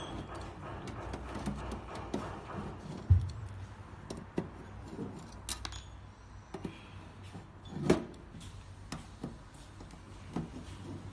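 Small metal clicks and taps of a screwdriver and screws being handled on a sheet-metal enclosure as its bottom-plate screws are taken out, with a louder knock about three seconds in and another near eight seconds.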